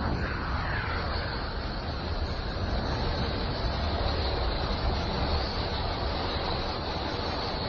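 Electromagnetic emissions from the planet Uranus converted into audio: a steady deep rumbling hiss with a faint high band, and a few faint sliding tones near the start.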